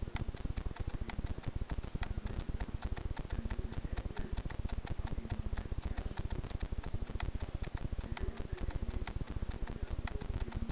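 A rapid, steady run of ticking clicks, several a second, over a low rumble.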